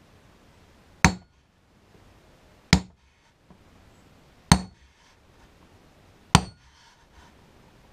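Claw hammer striking a steel marking bit held against a plywood sheet, centre-punching marks for drilling: four sharp blows a little under two seconds apart, each with a short metallic ring.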